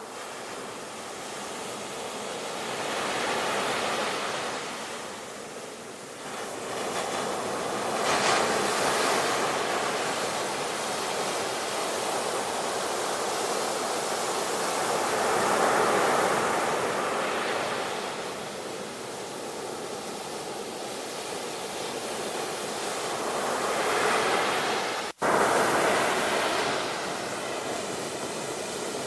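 Sea waves surging and washing back, swelling and easing every few seconds, with the sound cutting out for an instant near the end.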